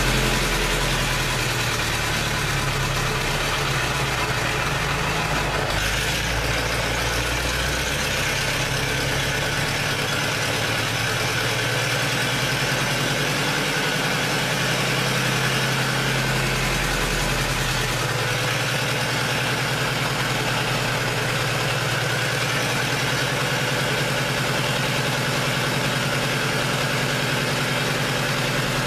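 Lister JK four-cylinder diesel engine of a 30 kW generator set running steadily, its low note shifting a few times before settling.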